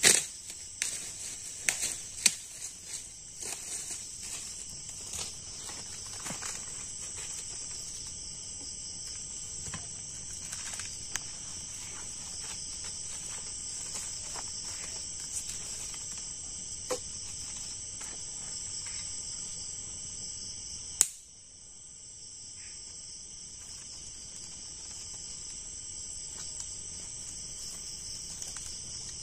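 Night insects chirring steadily in a high band. Light clicks and clatters of dry bamboo sticks being handled come mostly in the first few seconds, with one sharp click about two-thirds of the way through.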